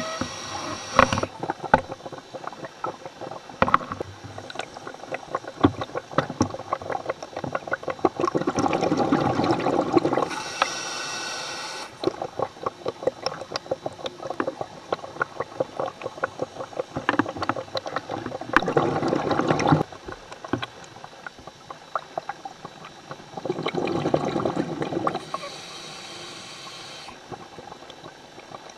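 Scuba diver breathing underwater through a regulator: hissing inhalations alternate with rushes of exhaled bubbles, in slow cycles, with dense clicking and crackling between breaths.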